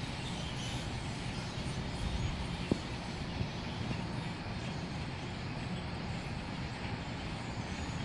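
Steady outdoor background rumble with no distinct calls standing out, and one light knock about three seconds in.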